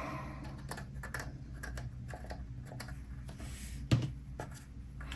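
Light, irregular clicks and taps of small plastic model-kit parts and a liquid cement bottle being handled on a workbench, with one louder knock about four seconds in.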